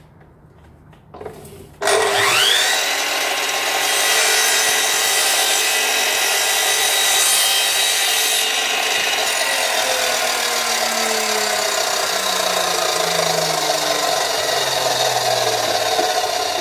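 Hitachi C12FSA sliding compound miter saw switched on: after a couple of clicks, its motor spins up with a rising whine about two seconds in, then runs loud and steady at full speed. A low tone falls slowly underneath in the second half.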